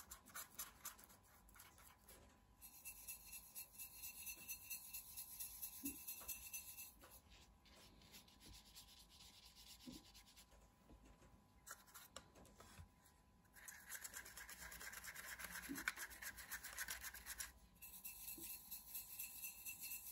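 Faint scratchy rubbing of a paintbrush's bristles swirling watercolour paint around a ceramic plate, coming in several stretches of a few seconds, the longest and loudest in the second half.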